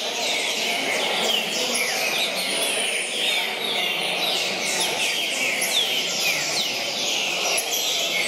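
Many caged green-winged saltators (trinca-ferro) singing at once in a tournament chorus. Short falling whistled phrases overlap continuously, over a low hall murmur.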